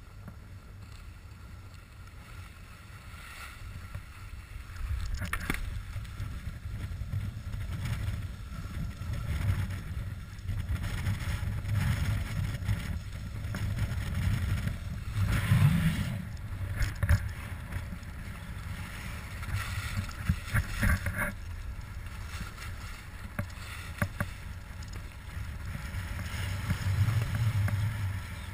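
Skiing down a snow slope: wind rumbling on the microphone over the hiss and scrape of edges sliding on snow. The sound swells and eases every few seconds, with a few sharper scrapes in the middle.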